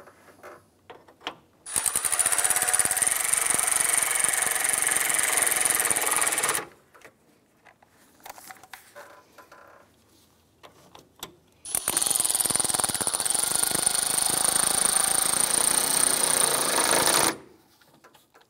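A cordless power ratchet runs twice for about five seconds each, snugging down radiator mounting bolts. It makes a high steady whine over rapid clicking, and each run starts and stops abruptly.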